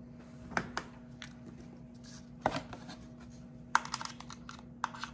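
Apple Vision Pro side straps being handled and pushed into the sides of the headset: a scatter of sharp little plastic-and-metal clicks and taps, with a quick run of clicks about three-quarters of the way through.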